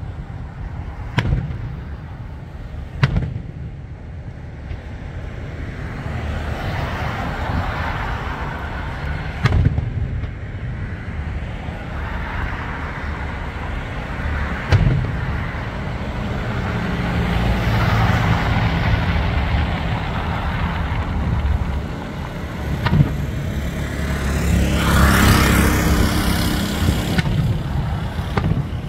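Aerial fireworks shells bursting at intervals: about five sharp booms spread through the stretch, over a continuous rumble and hiss that swells and fades several times.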